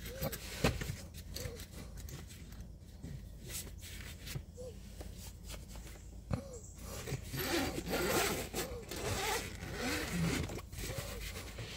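Handling noise: clothing rustling and scraping against the microphone as the camera is moved, with scattered soft clicks, busier about two-thirds of the way through.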